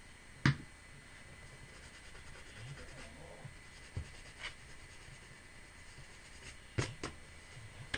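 Hands pressing and rubbing paper letters down onto card, a faint scuffing, with a few sharp clicks and taps: the loudest about half a second in, two more around the middle and two close together near the end.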